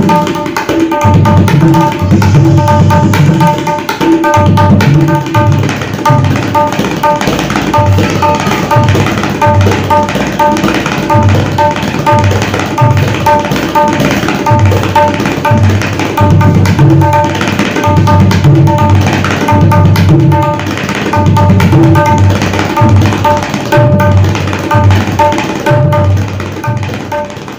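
Tabla played solo: a fast, unbroken run of ringing strokes on the tuned right-hand dayan over deep bass strokes on the left-hand bayan. It fades out at the very end.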